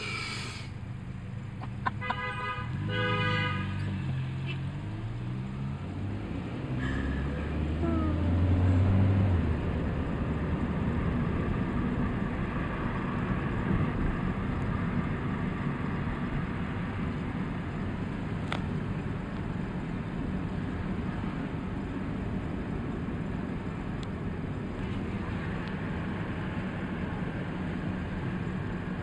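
Traffic heard from inside a car: a vehicle horn toots twice, about two and three seconds in. Then an engine revs up, with a deep, loud stretch a few seconds later. After that comes steady engine and road noise.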